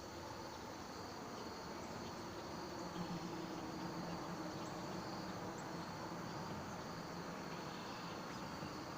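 Insects, crickets or similar, trilling steadily and faintly in a high band, over a low background hum.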